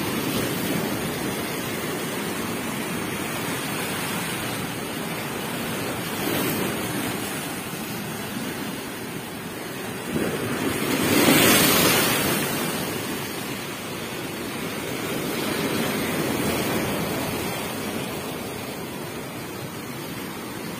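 Strong waves rushing and breaking against the shore in a continuous wash, swelling to a louder crash about halfway through, with wind on the microphone.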